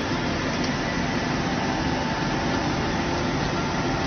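Biomass pellet-fired vertical steam generator running: a steady, even rushing noise of its burning fire and combustion-air blower, with a faint steady hum of tones under it.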